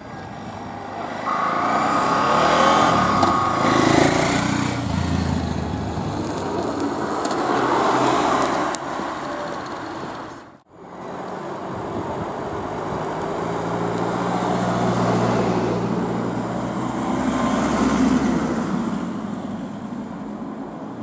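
A fire-service motorcycle accelerates away and rides off, with a short steady tone sounding about a second in. After a cut, a VW Transporter ambulance drives past, its engine running as it passes.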